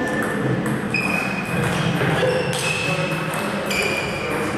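Table tennis balls striking a table and bats: a few sharp pings, each with a short ring, over a steady low hum.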